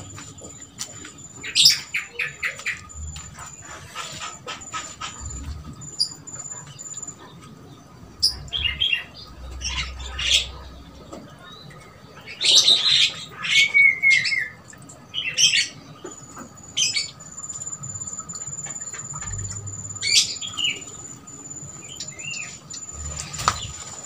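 Birds calling in several bouts: quick runs of sharp chattering notes and short slurred whistles, with a thin steady high tone in the background.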